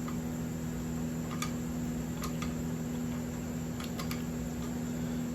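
Steady electrical hum of shop equipment, with a handful of small light clicks, two of them close together near the end.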